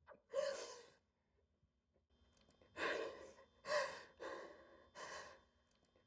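A woman sobbing: one sharp gasping breath, then after a pause a run of four shaky sobbing breaths in quick succession.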